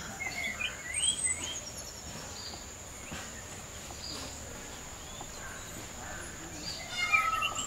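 A steady high insect drone with birds chirping: a few chirps about a second in and a quick run of chirps near the end.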